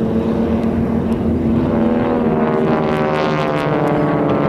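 Radial engines of a pair of North American AT-6D Texan trainers droning overhead as the two planes dive in formation. The pitch bends and shifts in the second half.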